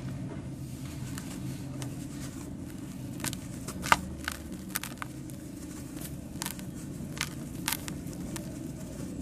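Dry sand cement being crushed and crumbling: a run of sharp, separate crackles and snaps starting about three seconds in, the loudest near four seconds, over a steady low rumble.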